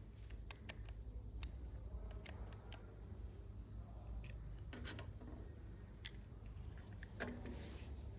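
Small sharp clicks and brief scrapes from handling small parts, scattered irregularly, with a longer scraping rustle near the end.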